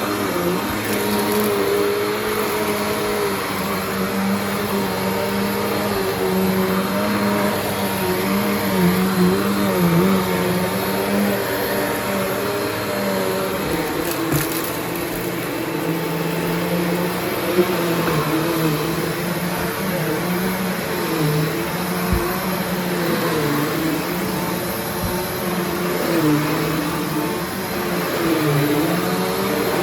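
Eureka Alimta vacuum cleaner running, a steady motor hum whose pitch wavers a little up and down, with a brief crackle about halfway through.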